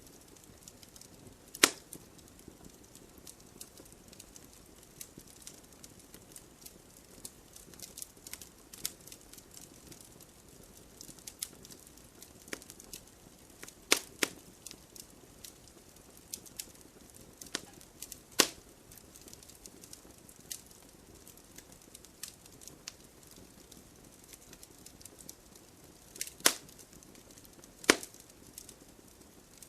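Burning firewood crackling: scattered sharp pops and snaps from the logs over a faint steady hiss, with about five louder pops standing out.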